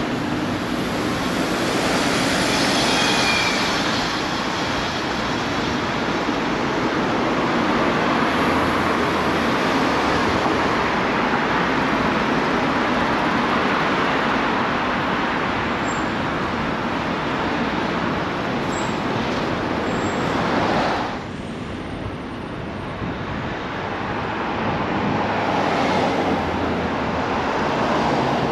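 Steady city road and traffic noise heard from a moving bicycle, dropping briefly about three-quarters of the way through and then building again.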